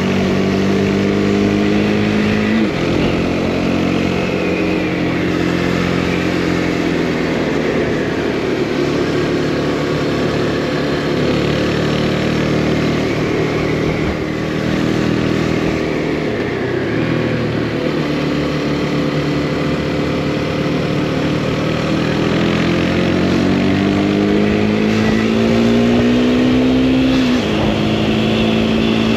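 Motorcycle engine heard from the rider's seat while riding, pulling up through the gears. The pitch climbs, drops at a gear change about two and a half seconds in, stays lower for a while, then climbs steadily again before another shift near the end, over steady wind and road noise.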